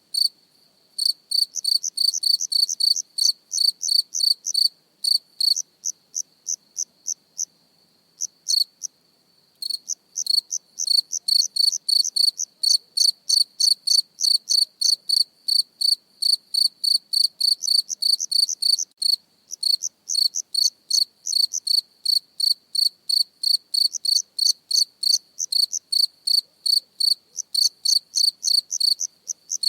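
A cricket chirping close up, a rhythmic run of short, high-pitched chirps at about four a second, with a few brief pauses in the run.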